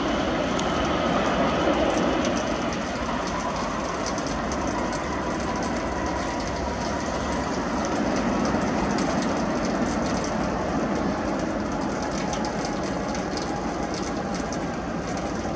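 Boeing 767 twin-turbofan jet engines during the landing rollout on a wet runway: a steady rumble that dips slightly a few seconds in and swells again about eight seconds in, as spray rises around the engines.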